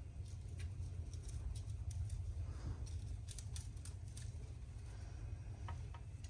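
Hand soldering a wire onto a sealed lead-acid battery terminal: light scattered clicks and crackles as the soldering iron and wire solder work the joint, most of them past the middle, over a steady low hum.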